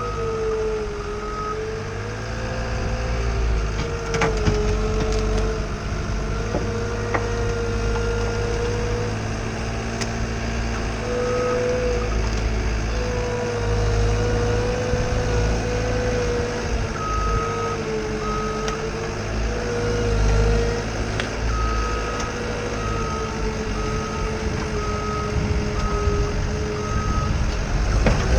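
Skid steer's diesel engine running under load with a whine that wavers slightly in pitch, while its reversing alarm beeps in runs of short beeps that stop and start again.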